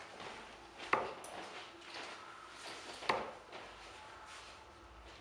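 Two steel-tip darts striking a Bull's Focus II bristle dartboard, each a short sharp hit, about two seconds apart.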